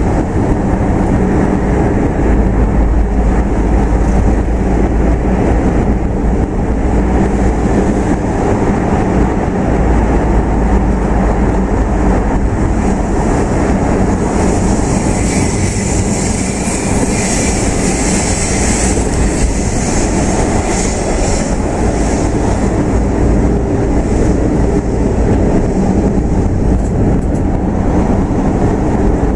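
Steady low rumble of a car on the move, engine and tyre noise heard from inside the cabin. A brighter hiss rises over it for several seconds in the middle, then fades.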